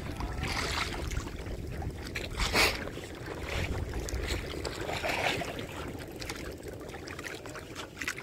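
Wind on the microphone and water sloshing around a small boat, with a low rumble that eases off about halfway through. A short rush of noise comes about two and a half seconds in.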